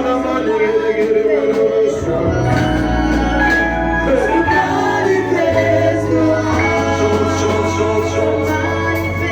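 Slow worship music: singing over sustained chords, with a low bass line that moves to a new note every second or two.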